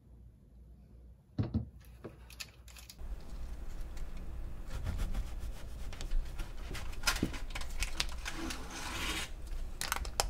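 A long knife sawing down through a frozen brownie slab on a wooden cutting board: rasping, scraping strokes with small clicks, loudest near the end. A few sharp knocks come about a second and a half in, before the cutting starts.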